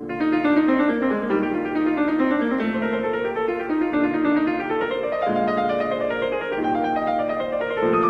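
Background piano music, a flowing run of notes that begins sharply.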